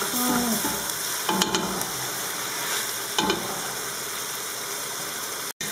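Chicken pieces sautéing in oil and spices in a stainless steel pot, sizzling steadily as a wooden spoon stirs them, with a few louder scrapes of the spoon in the pot, about a second and a half and three seconds in. The sound cuts out briefly just before the end.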